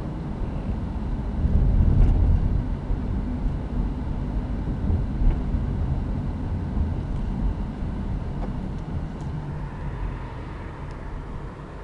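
Car cabin noise while driving: a steady low engine and tyre rumble, loudest about two seconds in, then easing off toward the end.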